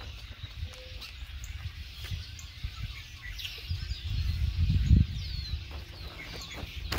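Birds chirping and calling in the background, with a low rumble and rustle from plastic sheeting and a wood strip being handled, loudest about two-thirds of the way through.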